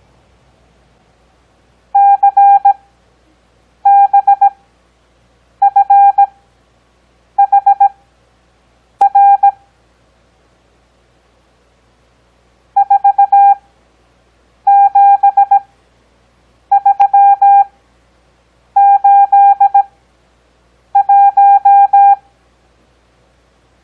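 Morse code practice tones: a single steady-pitched beep keyed into dots and dashes at 17 words-per-minute character speed with wide Farnsworth spacing (6 words per minute overall). Ten characters sound, two groups of five with a longer pause between the groups.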